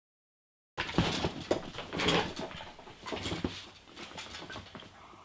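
About a second of silence, then a person sniffing and snuffling at a bowl of hot-sauce-coated chicken wings close to the microphone, in a run of short nasal and throat sounds. The chili fumes are getting up his nose.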